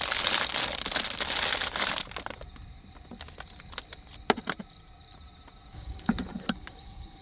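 Thin plastic bread bag crinkling loudly for about two seconds as it is handled open. This is followed by a few sharp snips of kitchen scissors cutting through a soft bread loaf.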